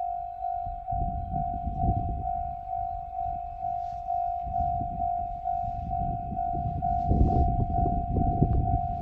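Japanese level-crossing warning bell of the JR Central type, ringing a steady electronic ding about twice a second. Under it a low rumble builds and grows much louder about seven seconds in, as a Joshin Electric Railway train comes through the crossing.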